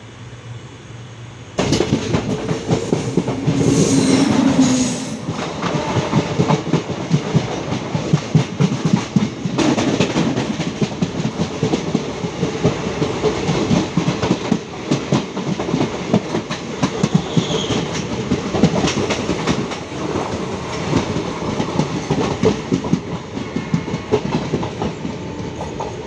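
Passenger train running at speed, heard from aboard a coach: a steady rumble with the wheels clattering rapidly over the rail joints. The sound jumps suddenly louder about a second and a half in.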